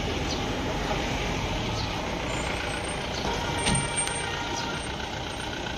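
Steady outdoor background noise with a low rumble, with a few faint ticks.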